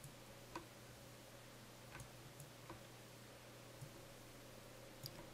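Near silence: a low steady hum with a handful of faint, scattered computer mouse clicks.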